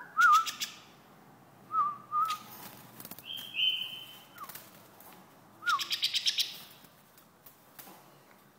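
White-eared bulbul giving short warbled notes and a higher whistle about three seconds in. Two loud bursts of rapid fluttering, one near the start and one about six seconds in, stand out above the calls.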